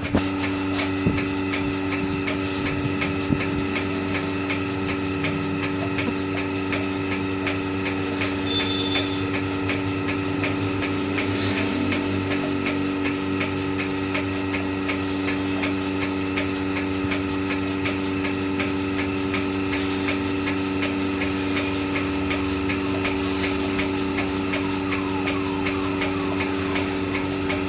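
Milking machine running: a steady mechanical hum with a fast, even ticking over it, typical of the vacuum pump and pulsator at work during milking.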